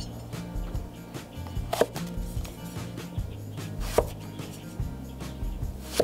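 Chinese cleaver slicing through an eggplant and knocking on a wooden chopping block: a few sharp chops about two seconds apart, the loudest about four seconds in.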